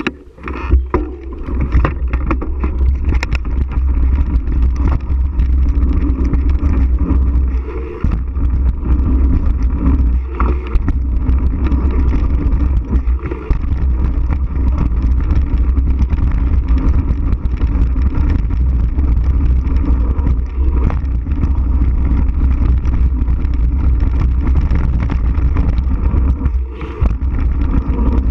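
Wind buffeting an action camera's microphone on a mountain bike riding fast down a dirt jump trail, a steady low rumble mixed with tyre noise and rattling from the bike over the bumps. A few sharp clicks come in the first seconds, and the noise drops briefly several times along the way.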